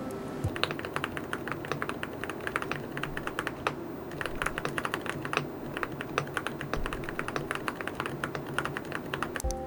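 Fast typing on an Archon AK55 keyboard: a quick, uneven run of key clicks starting about half a second in.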